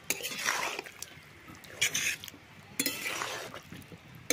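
A metal spoon stirring and scraping in a cooking pot, in three or four separate strokes.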